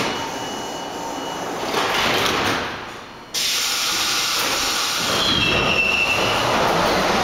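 R42 subway train closing its sliding doors and starting to pull out. A loud hiss of air starts abruptly about three seconds in and holds steady, with a brief rising whine about five seconds in.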